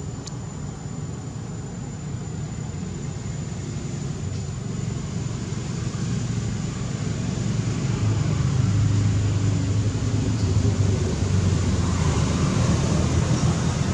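Steady low motor rumble, growing louder over the first eight seconds or so and then holding steady.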